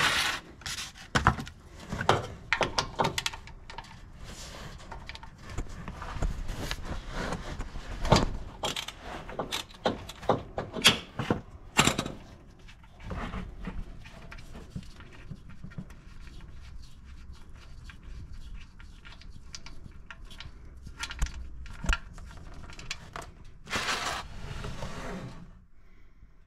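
Irregular knocks and clatter of a spanner and a plastic drain pan as the 15 mm sump drain bolt on the Falcon's 4.0 L inline-six is undone. After that comes a steadier rush of engine oil draining into the pan.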